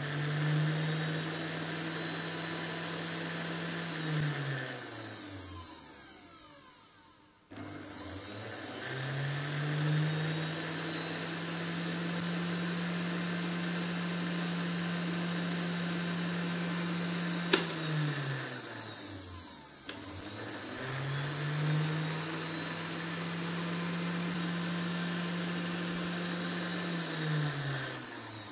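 Kitchen blender motor running from a homemade 12 V to 220 V inverter, switched on and off in three runs. It is already running at first and winds down about five seconds in. It then spins up twice more, running steadily for about ten and then about seven seconds, and winds down each time. There is a sharp click just before the second run ends.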